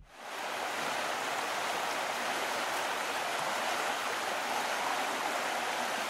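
Steady rush of river water flowing over rocks.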